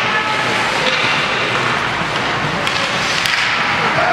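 Indoor ice rink ambience with a hockey game in play: a steady rushing noise, faint distant shouts, and a couple of sharp clacks near the end.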